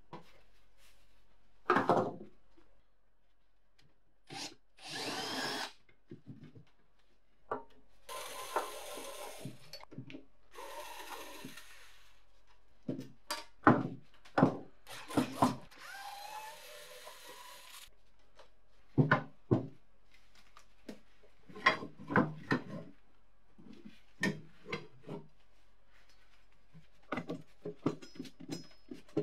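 Cordless drill-driver backing screws out of a metal guillotine frame in several short runs lasting one to three seconds, between clinks and knocks of metal parts being handled.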